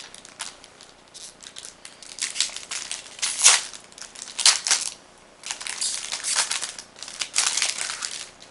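Foil wrapper of a Magic: The Gathering booster pack crinkling and tearing open in a series of sharp rustles, the loudest a few seconds in.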